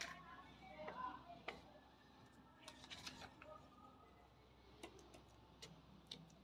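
Faint paper handling: a rolled paper tube and a paper strip rustling and tapping against a stone tabletop, with scattered small clicks, a cluster of them about three seconds in.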